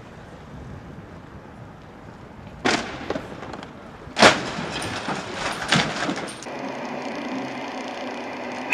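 Several sharp knocks and thuds over faint background noise: three loud ones about a second and a half apart, the middle one the loudest, with smaller clicks between. Near the end the sound cuts to a steady low hum.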